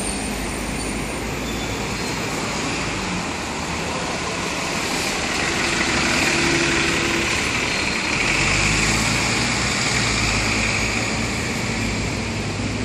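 Alexander Dennis Enviro500 MMC double-decker bus drawing past close by, its engine running louder for a few seconds in the middle, with street traffic around.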